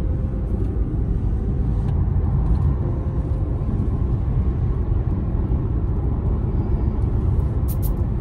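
Steady road and engine rumble of a car driving at highway speed, heard from inside the cabin, with a few light clicks near the end.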